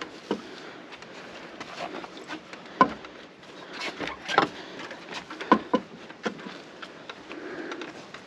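Carrera Hellcat mountain bike rolling over a bumpy path, with a steady tyre-and-ride noise and irregular sharp knocks and rattles from the bike, about half a dozen loud ones.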